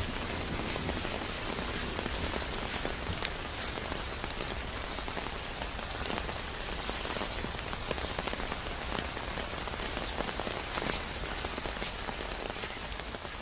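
Steady rain falling, an even hiss with many close drops ticking through it.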